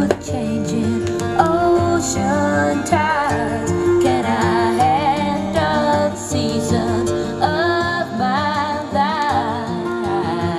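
Recorded music played back over a hi-fi system: a woman singing with vibrato over acoustic guitar.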